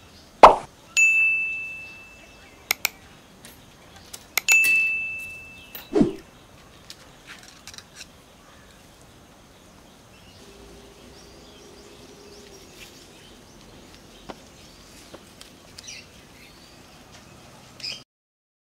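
Two bright bell-like dings about four seconds apart, each starting with a sharp click and ringing on steadily for a second or two, with a low thump just after the second. Faint bird chirps follow.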